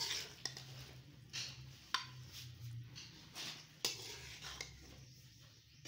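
Slotted steel spatula scraping and clinking against a steel pot and a plate as cooked okra curry is dished out: a few sharp clinks among softer scrapes, over a faint low hum.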